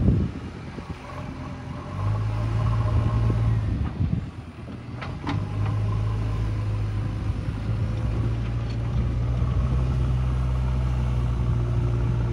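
JCB 3DX backhoe loader's diesel engine running steadily as the machine works, dropping away briefly twice. A couple of sharp clanks come about five seconds in.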